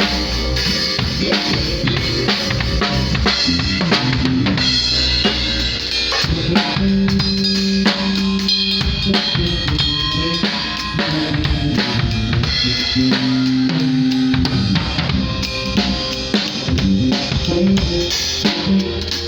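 Live band playing a groove at a sound check: a drum kit with bass drum and snare keeps a steady beat under sustained low notes and other instruments.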